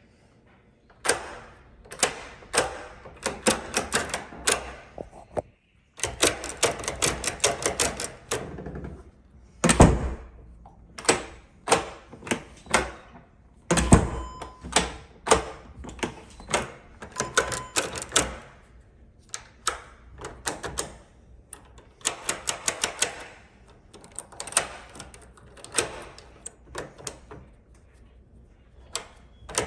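Bursts of rapid, sharp typewriter-like key clacks, several a second with short pauses between runs, and two heavier thumps partway through.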